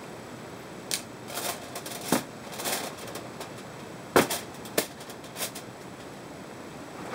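A foil-covered pan being handled and turned on a wooden surface: a handful of short crinkles of aluminium foil and light knocks at uneven intervals, the loudest about four seconds in.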